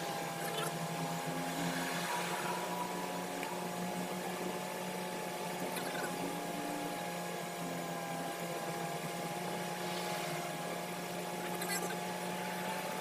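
Inside a moving car's cabin at expressway speed: steady engine and road noise, a hum with a few constant droning tones.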